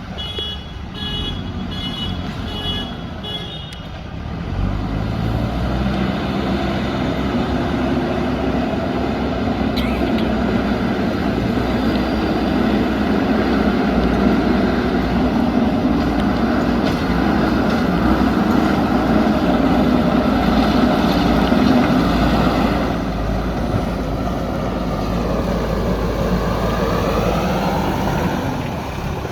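JCB backhoe loader's diesel engine working under load, with a reversing alarm beeping regularly for the first few seconds. The engine then grows louder and runs hard and steady. Near the end its note drops and rises again as the revs change.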